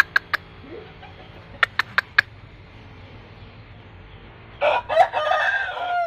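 Bangkok gamecock crowing once, loudly, about four and a half seconds in, the crow cut off abruptly. Before it come two quick runs of sharp claps, each about four claps a fifth of a second apart.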